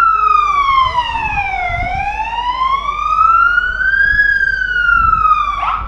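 Fire engine siren wailing loudly in a slow rise and fall of pitch, about two and a half seconds each way, then dropping quickly and cutting off near the end.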